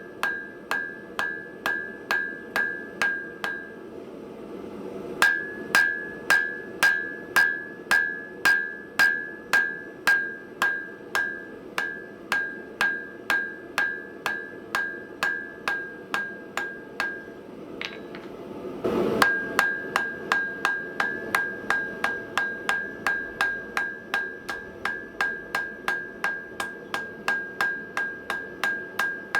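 Blacksmith's hammer striking hot steel on an anvil in a steady rhythm of about two to three blows a second, each blow with a high, clear anvil ring. The hammering stops briefly twice. The blows are knocking the corners of long square tapers down to an octagon to start rounding them up.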